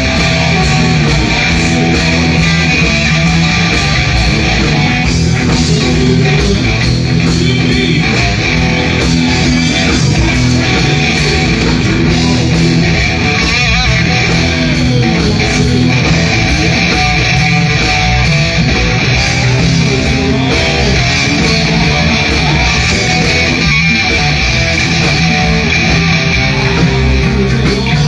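Loud live music led by electric guitar, played continuously without singing.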